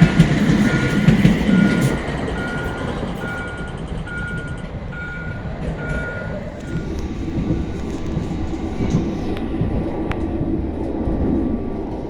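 Stockholm metro train stopped at a station, sounding its door warning: short high beeps about three every two seconds that stop about six and a half seconds in. The carriage's low rumble and the motors' steady hum run under and after them.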